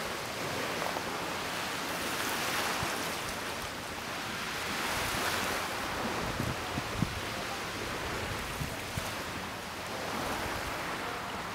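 Wind gusting across the microphone over the wash of choppy sea: a steady noise that swells and eases every few seconds, with a few low wind thumps about halfway through.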